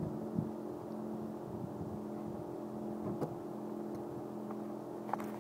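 Stock exhaust of a 2004 Mitsubishi Lancer Ralliart's 2.4-litre four-cylinder idling steadily, with no revs.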